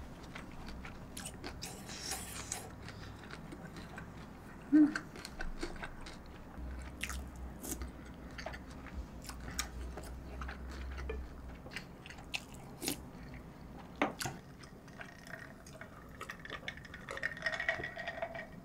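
Close-miked chewing and mouth sounds of someone eating kimchi-wrapped braised rib meat: soft wet chewing with scattered small clicks and smacks, and one louder short sound about five seconds in.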